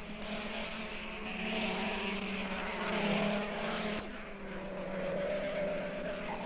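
Go-kart engines running at racing speed: a steady droning engine sound that swells and fades a little, with a brief dip about four seconds in.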